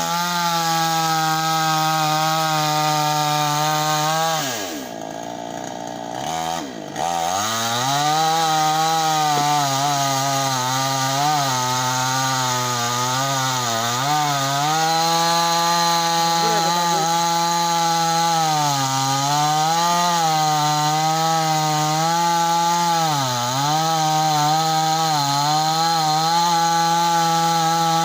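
Two-stroke chainsaw engine running at high revs. About four seconds in it drops to a low idle for a couple of seconds, then revs back up. It sags briefly in pitch a few times and winds down right at the end.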